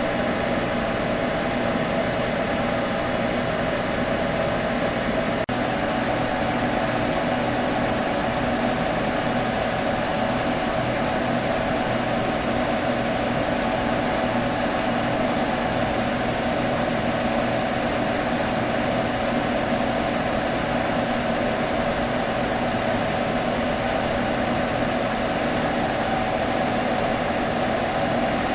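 Computer humming steadily: an even fan whir with a steady low hum, and a slight shift in tone about five seconds in.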